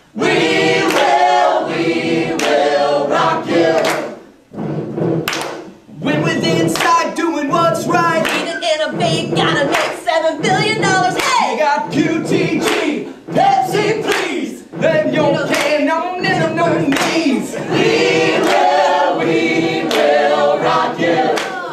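A group of mostly women's voices singing together without instruments, with hands clapping along.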